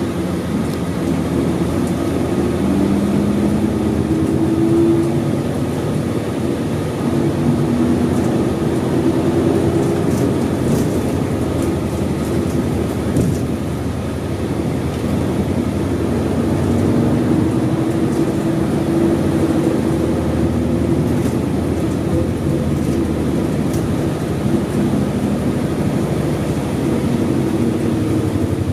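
Isuzu Erga city bus's V8 diesel engine running under way, heard from inside the cabin. Its note rises and falls several times with changes in speed.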